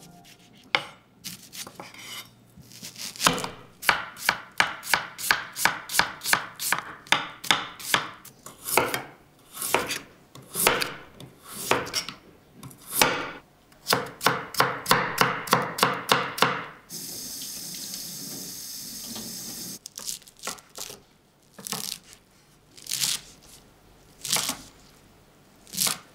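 Chef's knife slicing vegetables on a bamboo cutting board: onion, carrot matchsticks and mizuna greens. It comes in runs of sharp knocks on the wood, about three a second at the fastest. Partway through there is a steady hiss lasting about three seconds.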